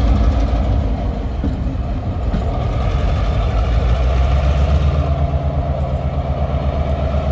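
Diesel locomotive running light, its engine rumbling steadily with a fine pulsing beat.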